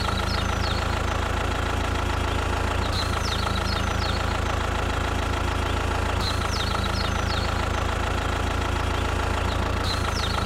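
Tractor engine idling steadily, with a short group of high chirps coming back about every three seconds.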